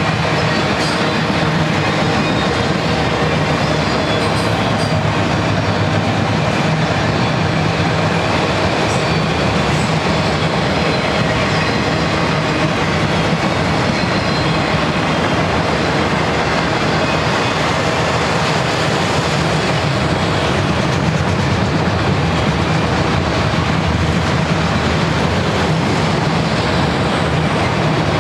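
Loaded auto-rack freight cars rolling past on steel rail: a steady, unbroken rumble of wheels on track.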